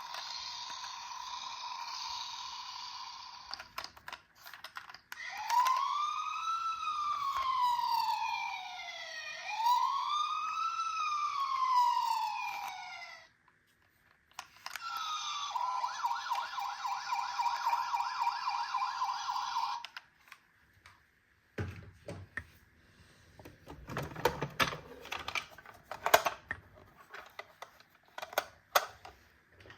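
Electronic siren sounds from miniature toy ambulances and fire trucks. A steady tone gives way to two slow rising-and-falling wails, then a fast warble that cuts off. After that come scattered clicks and knocks.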